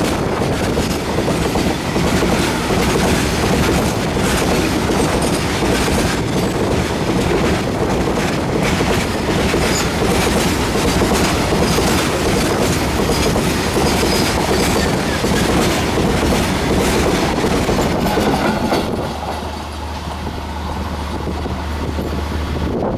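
A long goods train of covered freight wagons rolls past at close range, its steel wheels clattering over the rail joints in a dense rumble. About nineteen seconds in, the rumble drops away and a steady low hum remains.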